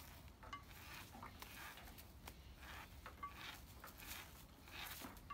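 Faint rustling and swishing of a twisted rope being drawn by hand through a loop, with soft irregular clicks.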